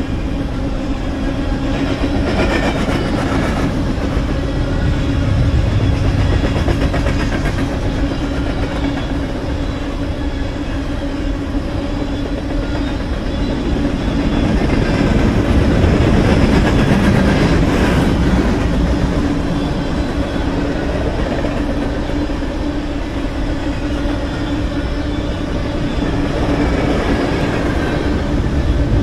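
A BNSF freight train's covered hopper cars rolling past at speed, their wheels on the rails making a continuous rumble with a constant low hum, swelling slightly about halfway through.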